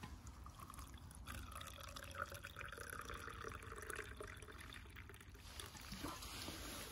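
Liquid being poured into a drinking vessel for about four seconds, starting about a second in, while making an Irish coffee.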